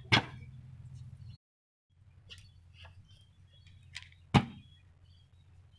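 Stunt scooter landing on a concrete path during tailwhips on flat ground: a sharp clatter of the deck and wheels hitting the concrete just after the start, and after a break another, louder one near the end. A few faint clicks and a low rumble of wind and handling noise lie underneath.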